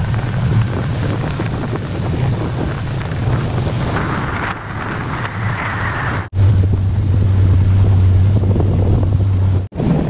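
Outboard motor running at speed, a steady low hum under wind buffeting the microphone and water rushing past the hull. The sound breaks off sharply about six seconds in and again near the end, and after the first break the engine hum is louder and steadier.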